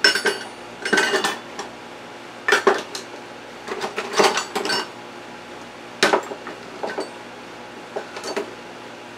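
Metal kitchen utensils clattering and clinking in several irregular bursts as someone rummages through them for a measuring cup.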